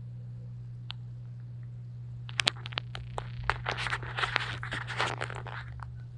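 A burst of scratching and crackling close to the microphone, lasting about three seconds from two seconds in, over a steady low electrical hum.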